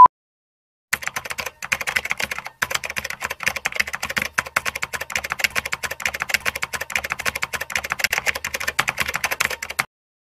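Rapid, uneven keyboard-typing clicks, a typing sound effect that goes with text typing itself onto the screen. They start about a second in, break off briefly a couple of times, and stop just before the end.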